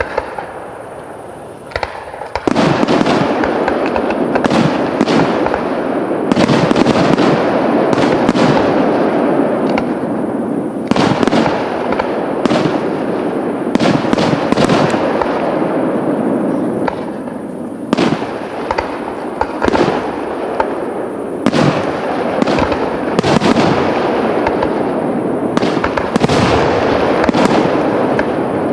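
Professional aerial fireworks display: after a quieter first two seconds, a dense barrage of shells bursting, many sharp bangs over a continuous loud rush of noise.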